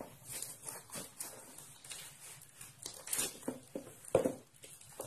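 Cardboard box, packing tape and plastic wrap being handled and pulled open: irregular rustling, crinkling and scraping, with a sharper knock about four seconds in.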